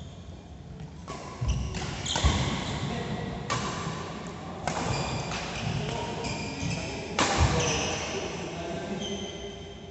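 Badminton rackets striking a shuttlecock in a doubles rally: about half a dozen sharp hits a second or so apart, each echoing in the hall, the hardest about two seconds in and again near the end.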